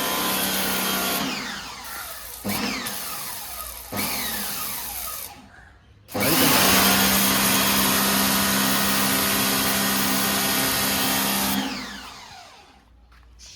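Electric pressure washer motor and pump running with water spraying from the gun, cutting in when the trigger is pressed and winding down with a falling whine each time it is let go. A few short bursts come first, then one longer run of about five seconds.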